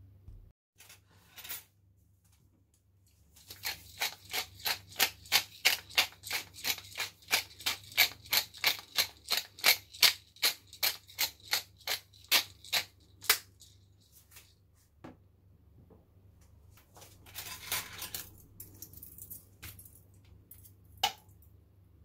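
Pepper mill grinding: a run of quick gritty twists, about three a second, lasting some ten seconds, followed later by a shorter rustle and a click.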